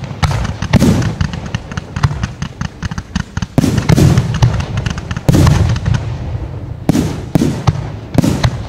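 Fireworks display: aerial shells bursting in a rapid series of loud bangs, with many quicker pops and crackles between the big reports.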